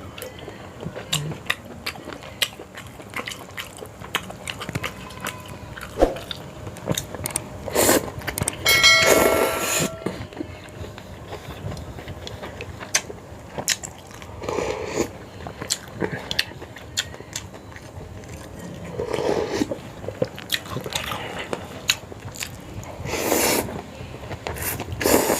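A person eating a bowl of Sarawak laksa: chewing and slurping noodles and broth, with small mouth clicks and smacks throughout and louder slurps several times. A brief ringing clink of a utensil comes about nine seconds in.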